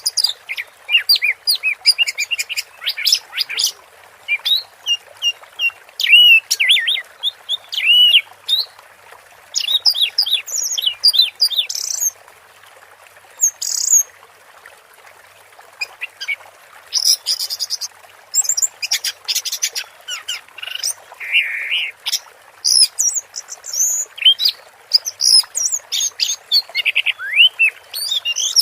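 Orange-headed thrush singing a long, varied song of quick whistles, chirps and trills, with a break of about two seconds midway. Under the song runs a steady soft hiss.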